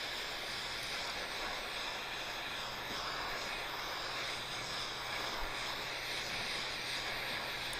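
Handheld torch burning with a steady hiss of gas and flame, heating a glass 3D-printer build plate to loosen a stuck print.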